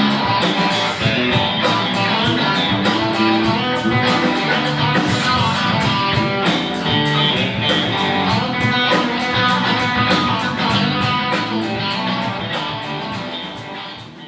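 Guitar music with a steady beat of sharp percussive hits, fading out near the end.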